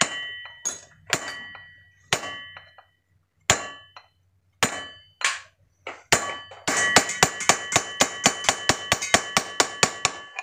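Hammer blows on a steel ball joint, each a sharp clang with a short metallic ring, peening the riveted lip of the ball joint housing smooth on a metal block. At first the blows come singly, about a second or more apart. From about two-thirds of the way in they turn into a fast, even run of several blows a second.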